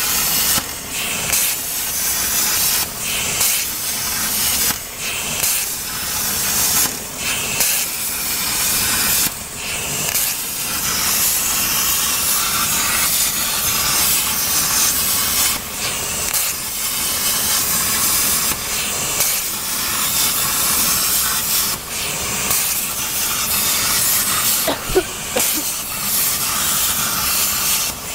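CNC plasma cutter's torch hissing loudly as its arc cuts through thin 2 mm sheet metal. The hiss dips briefly every few seconds.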